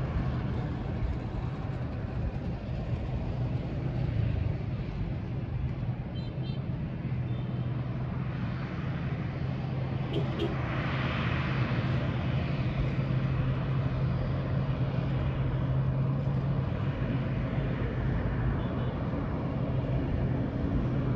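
Distant steady drone of a twin-turboprop airliner's engines on the runway, a low hum that swells for several seconds in the middle, over a wash of outdoor traffic-like noise.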